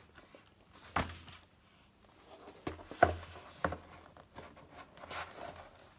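Cardboard box handled on a table: several sharp knocks and taps, the loudest about a second in, with light rustling of the cardboard.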